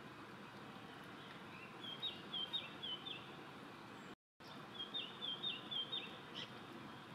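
A small songbird calling twice, each time a quick phrase of about four short, high notes, over a steady background hiss.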